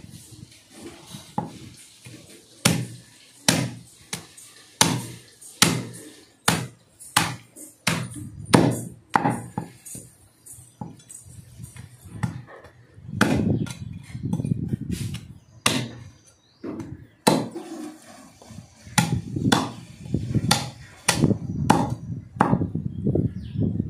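A butcher's cleaver chopping goat meat: an irregular run of sharp chops, about one or two a second.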